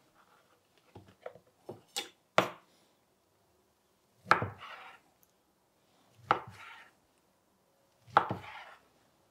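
Chef's knife cutting through a block of fish cake and striking a wooden cutting board: a few light taps, then three firm cuts about two seconds apart.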